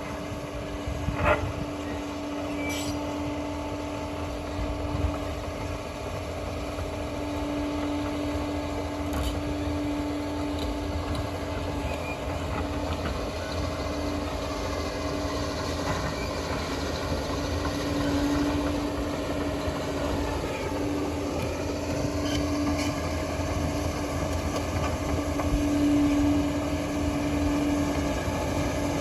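Liebherr PR 746 crawler dozer working, its diesel engine and drive running steadily with a constant whine over a low rumble. One short knock sounds about a second in.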